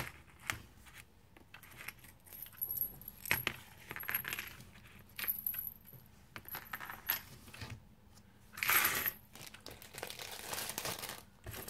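Metal split key rings, chains and small charms on resin keychain pendants clinking and jingling as they are handled and set down on a table, in scattered short clinks with a longer jangle about three-quarters of the way through.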